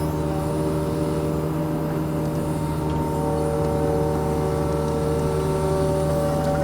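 Compact excavator's diesel engine running steadily, with higher whining tones from the hydraulics that shift in pitch as the machine works.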